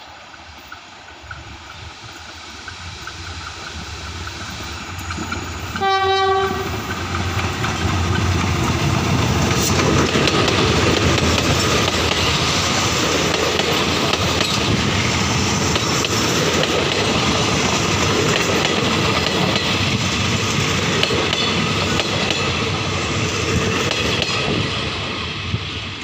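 GEK-class diesel-electric locomotive No. 4050 and its passenger train approaching and passing close by. The locomotive gives one short horn blast about six seconds in. The carriages then roll past with wheels clacking over the rail joints, growing louder as the train nears and fading near the end.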